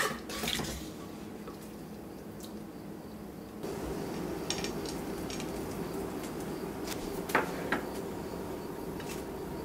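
Clay mortar and ceramic plate knocking and clinking as salad is handled: one sharp knock at the start, then scattered lighter clinks and taps, two close together near the end, over a steady low hum.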